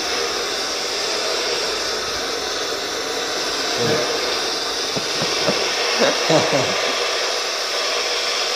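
Steady electronic hissing of a MIG welding simulator's arc sound while a practice weld is being made, with faint voices briefly in the middle.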